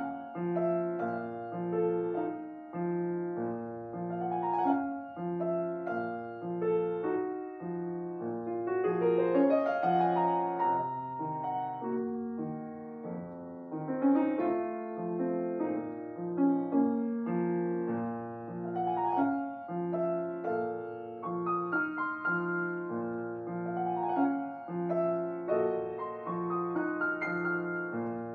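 Solo acoustic piano playing a classical piece: a steady repeating bass and chords under a melody, with a quick rising run about nine seconds in.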